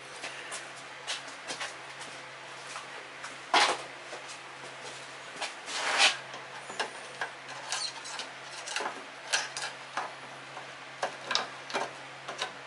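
Scattered short plastic clicks, knocks and rubs as a long funnel is drawn out of a Briggs and Stratton mower engine's oil fill tube and the dipstick cap is handled and fitted back in. The two loudest knocks come about three and a half and six seconds in, over a low steady hum.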